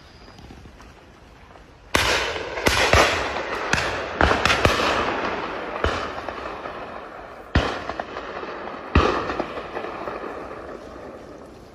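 A string of about nine sharp gunshots, several in quick succession, starting about two seconds in, each followed by a long fading echo.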